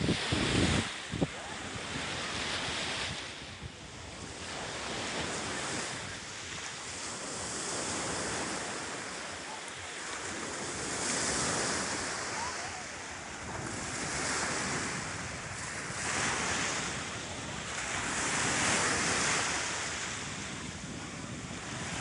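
Sea waves washing in, the surf swelling and falling back every few seconds. Wind buffets the microphone in the first second.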